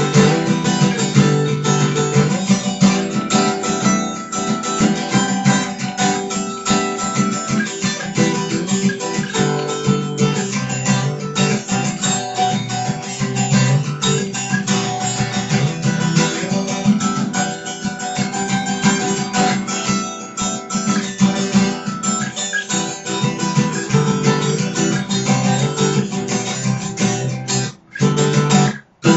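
Hollow-body archtop guitar played solo, a steady run of strummed chords and picked notes, briefly dropping out near the end.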